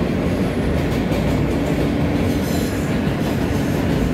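J subway train running at speed on an elevated track, heard from inside the car: a steady rumble of wheels on rail, with a faint high wheel squeal about halfway through.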